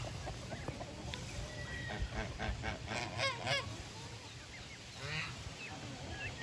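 Farmyard poultry calling: a quick run of short honking calls about halfway through, with a few scattered smaller calls around it.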